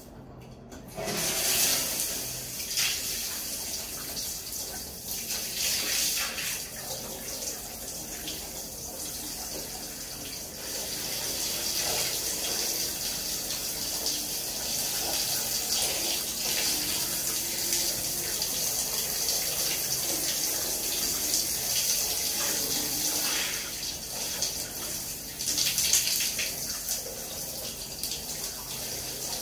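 Water running from a handheld shower head onto a tiled floor, turned on about a second in and then running steadily, with a few louder swells.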